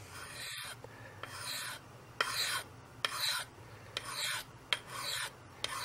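Fiskars hatchet's steel edge stroked across a wetted DMT credit-card-sized diamond sharpening plate: a raspy scrape about once a second, six strokes in all. This is the edge being given a secondary bevel at a raised angle, to keep the factory edge from rolling.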